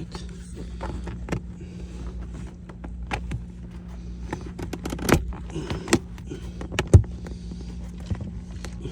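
Plastic trim piece and its clips being pushed and worked into place: a series of sharp clicks and knocks, the loudest about five and seven seconds in, over a steady low hum.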